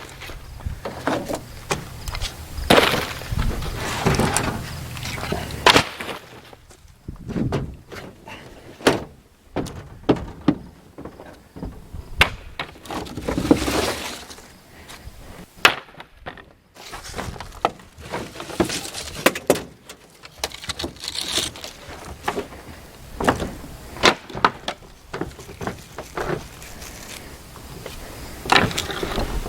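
Lumber and scrap wood being handled and tossed onto a pile: irregular knocks and clattering of boards striking one another, some with a short ringing tail.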